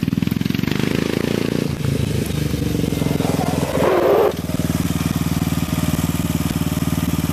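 2008 Yamaha Raptor 350 quad's single-cylinder four-stroke engine running through an HMF aftermarket exhaust as the quad rolls up, then settling to a steady, evenly pulsing idle. A brief gritty scuffing noise is heard about four seconds in.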